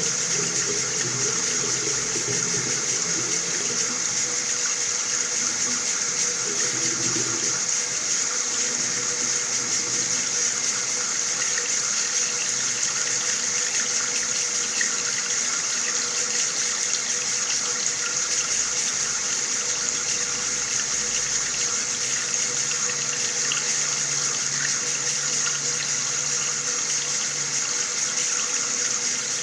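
Water running steadily from a tap, an even hissing rush with a faint steady hum underneath.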